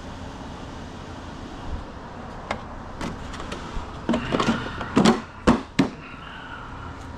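A run of sharp knocks and clicks from handling, over a steady low hum, bunched together and loudest about two-thirds of the way in.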